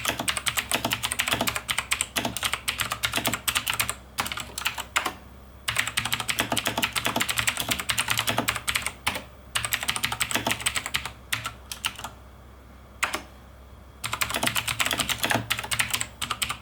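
Typing on a Razer BlackWidow Chroma V2 mechanical keyboard with clicky, tactile Razer Green switches: rapid sharp key clicks in bursts, broken by a few short pauses, the longest about two seconds near twelve seconds in.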